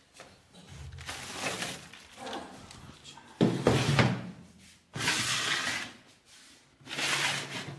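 Handling noise: four bursts of knocking and rustling, the loudest a sudden thump about three and a half seconds in.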